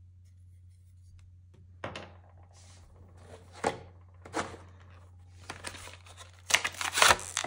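Packaging crinkling and rustling as a figure is unwrapped and handled, in separate bouts with light knocks, starting about two seconds in and loudest near the end.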